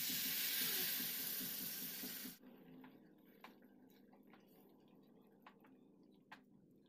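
Water poured from a steel vessel into a kadhai of spiced potatoes, a loud splashing pour that stops suddenly about two and a half seconds in. Then a spatula stirring the thin curry, with a few light clicks against the pan.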